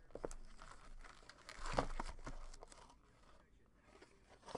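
Baseball card pack wrapper crinkling and tearing as a pack is opened, busiest about two seconds in and fainter near the end.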